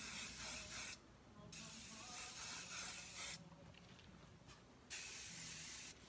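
Evo dry wax spray can misting onto curled hair in three hissing bursts: a short one at the start, a longer one of about two seconds, then another short one near the end.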